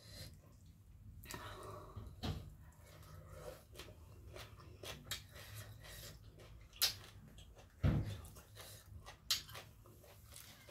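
A person chewing a mouthful of papaya salad, with wet mouth clicks and smacks scattered throughout. There are a couple of low thumps and two sharp clicks in the second half.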